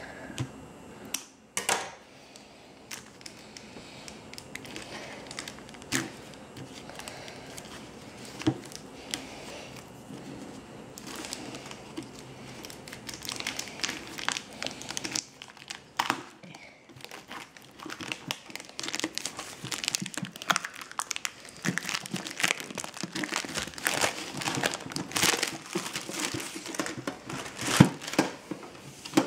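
Plastic shrink-wrap being torn and crinkled off a metal collector's tin. There are a few sharp knocks in the first half, and the crackling grows denser from about halfway on.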